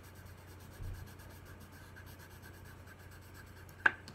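Colored pencil scratching on paper, drawing strokes of dog fur. A single sharp click near the end.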